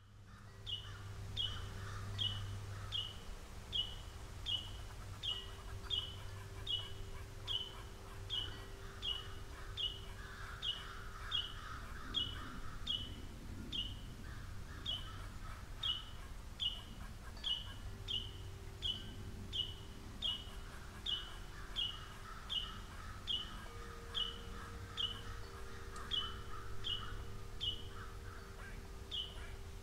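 A songbird repeats one short, high, down-slurred call note over and over, about three every two seconds, with a couple of brief pauses. Fainter birdsong goes on behind it.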